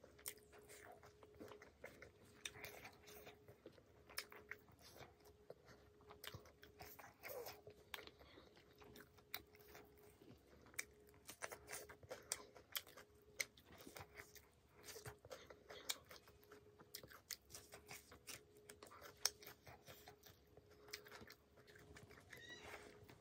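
Faint, close-up chewing and biting as a person eats dry pork and rice by hand, with small crunches and many short wet mouth clicks. A faint steady hum runs underneath.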